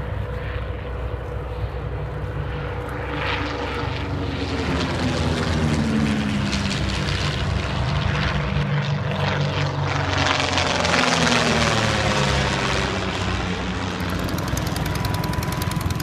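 Two piston-engined propeller aircraft flying past low together. Their engine drone builds to its loudest about halfway through, and the pitch falls as they go by.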